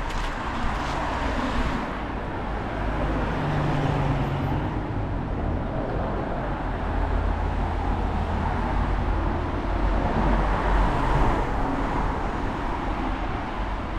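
Road traffic: motor vehicles driving past with a steady engine and tyre noise that swells about a second in and again near the end.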